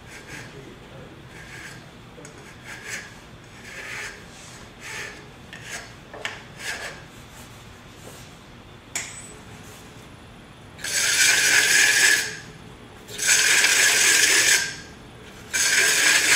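A hand file scraping an aluminum bowl as it spins on a wood lathe, smoothing out chatter marks left by the cutting tool. Light, short strokes come about once a second at first, then long, loud strokes in the last few seconds.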